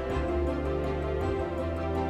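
Soft instrumental background music: sustained chords held over a low bass line that changes note about every second.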